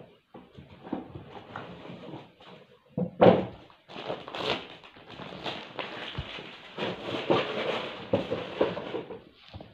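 Gift wrapping paper rustling and crinkling as a wrapped box is handled and unwrapped, with one loud thump about three seconds in as a box is knocked or set down.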